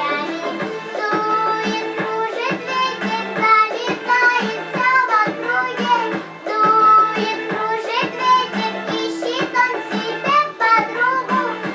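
A girl singing a song over an instrumental backing track.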